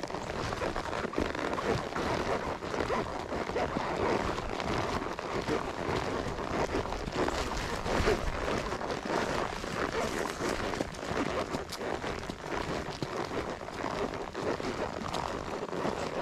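Horses walking on a trail: a steady, dense patter of hoofbeats and small knocks.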